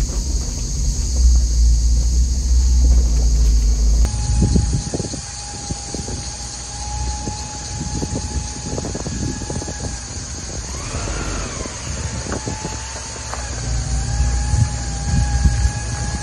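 Toyota LandCruiser four-wheel drive crawling slowly through a deep rut off-road, its engine working at low revs, with irregular crunches and knocks from tyres and suspension over dirt and roots. For the first few seconds it is a heavy low drone heard from inside the cab; after that it is heard from outside, more quietly, under a steady high-pitched hum.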